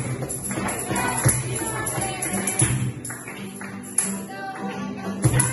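Cajón and acoustic guitar played together in a flamenco-style rhythm, with singing over them. The cajón's deep beats drop away for a couple of seconds past the middle, then come back strongly near the end.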